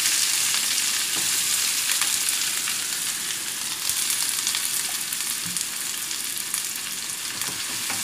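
Sliced onions sizzling in hot oil in an iron kadai: a steady frying hiss that slowly fades a little as the onions cool the oil.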